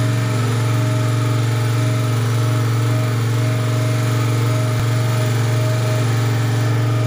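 Pelican MLT 1000 1 kVA portable generator engine running at a steady, even speed.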